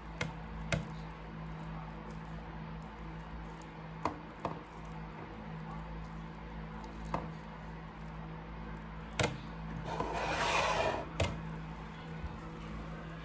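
Sticky shampoo-and-baking-soda slime being squeezed and pulled between fingers: scattered short sticky clicks and pops, with a longer wet rustle about ten seconds in.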